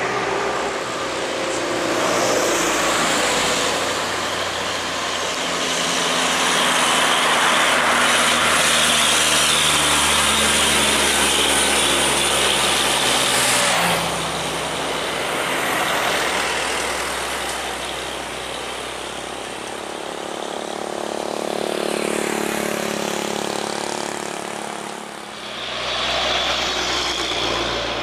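Heavy trucks and other traffic passing on a highway: diesel engines running with tyre and road noise, swelling and fading as vehicles go by, loudest about a third of the way in, with a sudden change about halfway.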